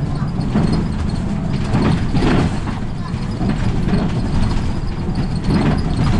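Route bus driving along, heard from inside the cabin near the driver: steady engine and road noise with irregular rattles and knocks from the bus's fittings.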